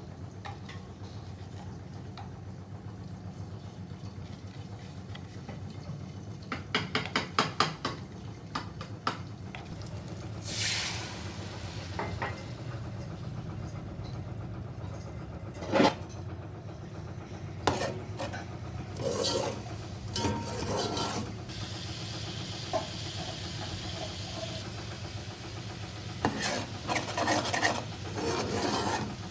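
A slotted spoon stirring and scraping a thick fried masala around a pot, with clicks and one sharp knock of the spoon against the pot. A few seconds of sizzling come about two thirds of the way through, over a steady low hum.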